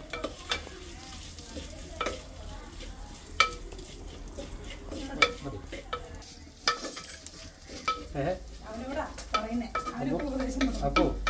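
Wooden spatula stirring in a clay pot, knocking sharply against its side every second or two, over the sizzle of ginger and garlic frying in oil.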